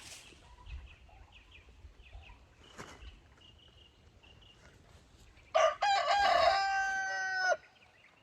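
A rooster crowing once, about five and a half seconds in: a short first note, then a long held note lasting about two seconds. Faint high chirping can be heard around it.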